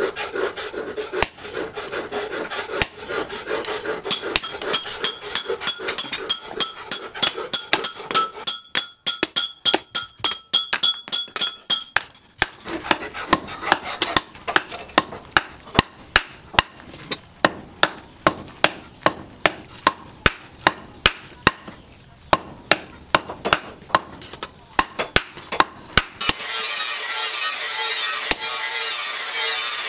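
Hammer blows on a red-hot disc-plough steel cleaver blade lying on a steel post anvil, a rapid run of sharp metallic strikes, about three a second for a while, with a ringing tone after each. A steady hiss joins near the end.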